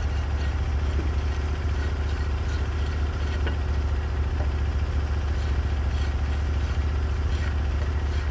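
Engine idling steadily: a constant low drone, with a few faint light ticks over it.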